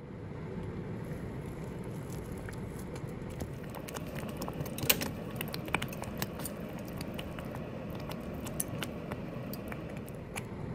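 Thick rice congee simmering in a pot: a steady low bubbling with irregular sharp pops as thick bubbles burst, the loudest pop about five seconds in.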